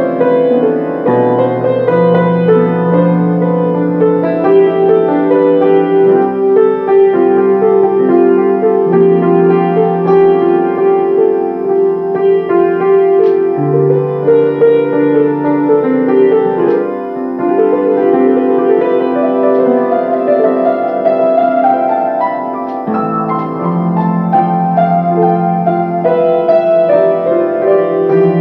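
Grand piano played solo: a slow piece of chords and melody over held bass notes that change every few seconds.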